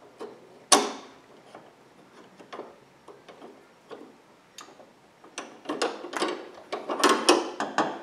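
Small metal clicks and rattles from hydraulic line fittings and a steel bracket of an R171 SLK roof's front lock mechanism being handled: one sharp knock about a second in, scattered ticks, then a quick run of clicking and rattling over the last few seconds.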